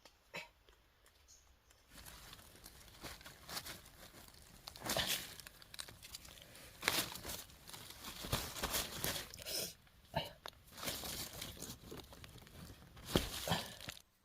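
Irregular crackling and tearing noises from something being handled, starting about two seconds in, with several louder sharp cracks, and stopping suddenly near the end.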